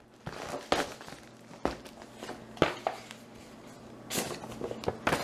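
Handling noises: a few sharp knocks about a second apart, then a spell of paper-like rustling near the end.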